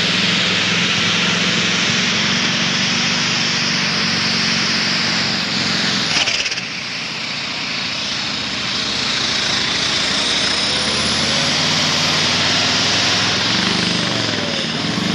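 Modified pulling tractor's engine running flat out under full load, loud and steady. There is a brief dip about six seconds in, and the engine note wavers up and down near the end.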